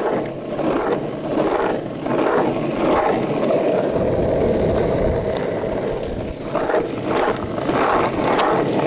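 Longboard wheels rolling fast over asphalt down a steep hill, a steady loud rolling rumble of the wheels on rough pavement. A deeper rumble joins for a couple of seconds in the middle.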